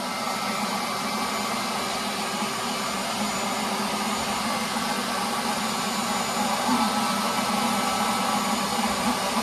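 An electric motor and fan running steadily, with an even whirring hiss and a constant hum.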